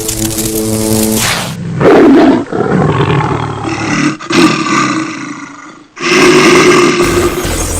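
Loud roars, several in a row, the longest fading away over a few seconds before another starts sharply near the end. A short steady horn-like tone comes first.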